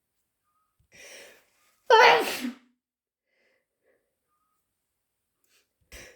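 A person's wet sneeze: a short, faint in-breath about a second in, then one loud voiced sneeze about two seconds in that falls in pitch. Another quick in-breath begins near the end, winding up for the next sneeze.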